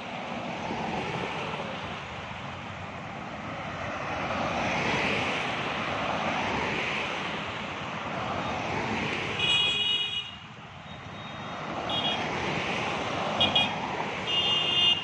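Road traffic passing in slow swells of vehicle noise. Short vehicle-horn toots come about ten seconds in and several times near the end.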